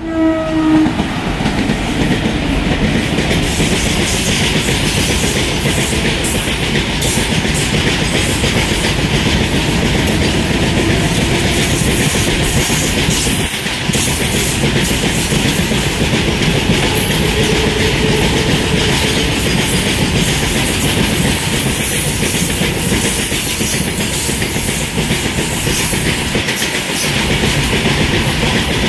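Freight train of tarpaulin-covered BOXN wagons running past close by: a steady loud rumble of wheels on rail with many sharp clicks and clatters. The hauling WAG-5 electric locomotive's horn dies away in the first second.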